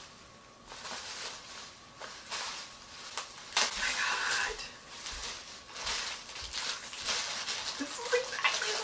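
Bubble wrap and plastic packaging rustling and crinkling as it is pulled apart by hand, the crackling getting busier and louder a few seconds in.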